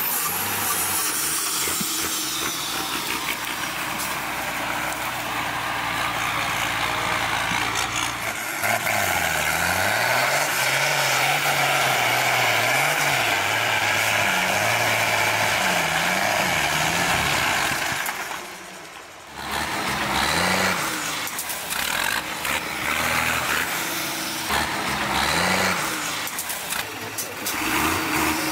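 Diesel engine of an off-road trial truck labouring up a steep rocky slope, revving up and down again and again as the driver works the throttle, over the rumble and scrabble of the climb. The sound dips briefly a little past the middle, then the revving picks up again.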